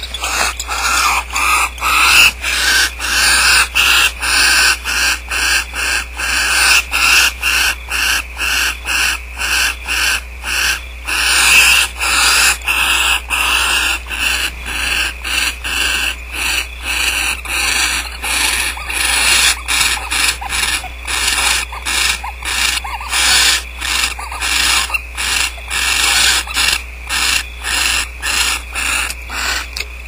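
Barn owls in a nest box giving harsh rasping hisses over and over, about two a second without a break, over a steady low hum.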